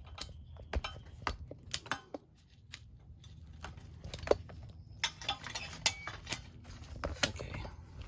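Irregular sharp clicks and light metallic clinks of hard parts being handled, a dozen or so knocks, busiest about five to six seconds in.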